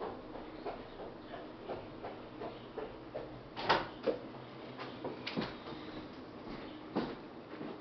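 Cats scuffling about: a scatter of light taps and rustles, with a few sharper knocks in the middle and one near the end.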